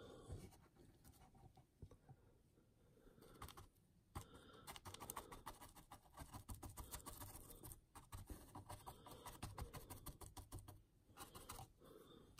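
Faint, quick scratching and dabbing of a small paintbrush stippling AK Interactive Muddy Ground, a thick textured mud paste, onto a model's base. It comes in stretches with short pauses.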